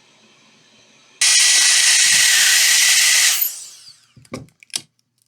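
A small electric blower motor starts about a second in with a loud rush of air, runs steadily for about two seconds, then is switched off and spins down with a falling whine. Several sharp clicks and knocks follow near the end.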